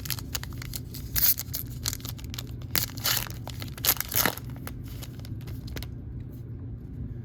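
A foil trading-card pack being torn open and its wrapper crinkled, in several bursts of tearing and crinkling that die away about six seconds in.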